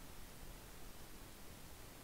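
Faint steady hiss of room tone from the recording microphone, with no distinct sound.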